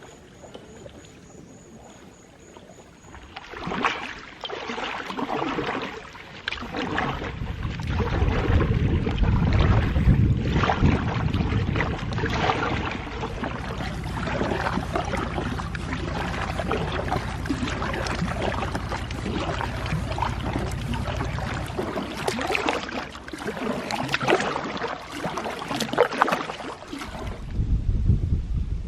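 Kayak paddle strokes, the blades splashing and dripping in lake water alongside an Oru Lake foldable kayak, starting a few seconds in. A low rumble runs under the strokes through the middle stretch.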